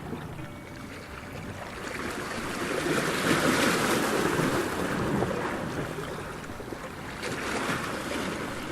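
Ocean surf: a wave rises and breaks about three seconds in, then washes out, with a smaller wave following near the end.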